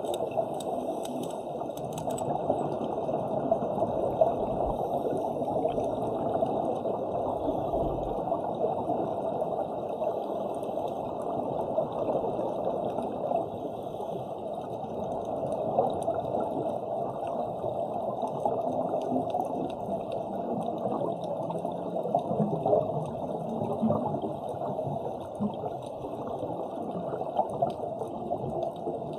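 Muffled underwater rush of water with bubbling, as picked up by a camera underwater during a scuba dive. It is steady, with small swells in level every few seconds.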